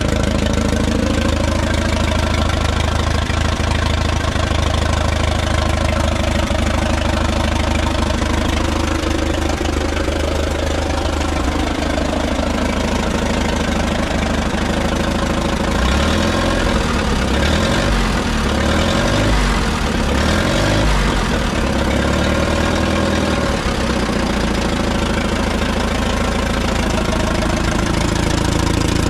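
A 1947 Case VAC tractor's four-cylinder engine running at idle with its valve cover off. The running note wavers unevenly for several seconds past the middle, then steadies.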